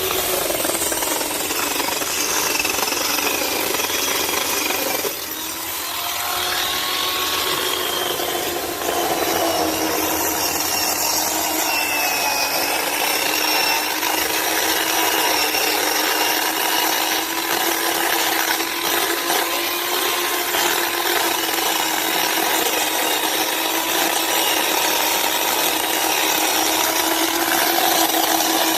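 Chainsaw running steadily while sawing through a tree, its engine note holding a near-constant pitch with a brief dip in level about five seconds in.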